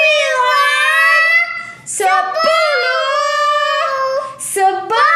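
A young child's voice singing or chanting in long drawn-out, wavering notes: two long phrases with a quick breath between them.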